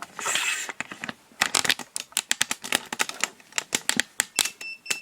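Handling noise: a rapid, irregular run of light clicks and taps, several a second, with a brief rustle at the start.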